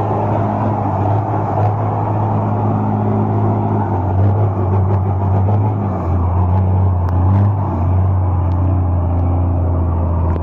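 Heavy Ford truck's engine running under load as the truck pulls away up a muddy dirt road, its engine note dipping slightly about six seconds in.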